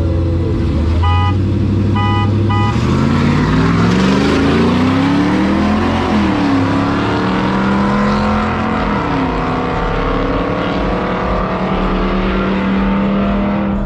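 Pickup-truck engines idling side by side at a street-race start line, with three short beeps. About three seconds in, both trucks launch and accelerate hard, their engine notes climbing, dropping back at each gear change and climbing again.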